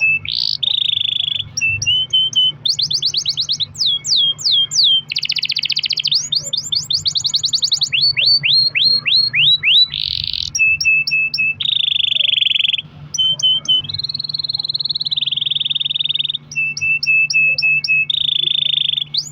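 Domestic canary singing a long, unbroken song of fast rolls and trills, switching every second or two between buzzy rolls, rapid down-slurred whistles and held trilled notes.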